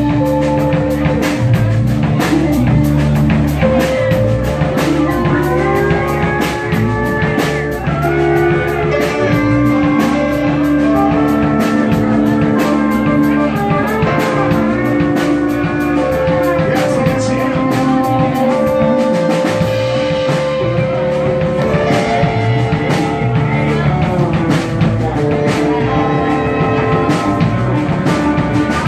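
Live rock band playing: electric guitars, electric bass, keyboard and a drum kit, with sustained guitar notes bending in pitch over a steady cymbal and drum beat.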